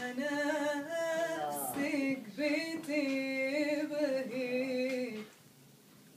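A woman singing an Arabic song unaccompanied, in long drawn-out phrases with held, wavering notes and slides between pitches. Her voice stops about five seconds in.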